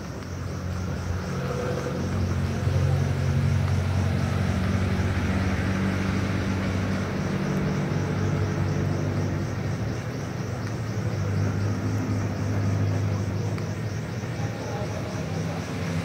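Low, steady engine rumble like a vehicle running nearby, growing louder about two seconds in. Underneath it, a guinea pig chewing broccoli faintly.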